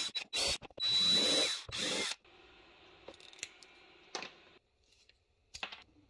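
Cordless drill/driver run in a few short trigger bursts, then one longer run of about a second, with a steady high motor whine; it is working on the HDPE plastic latch block. After that, a few light clicks of small parts being handled.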